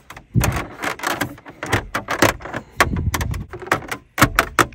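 Plastic centre-console trim surround of a Seat Leon MK2 being pressed back into place around the radio: a run of plastic knocks, clicks and rubbing, with a quick cluster of sharp clicks near the end.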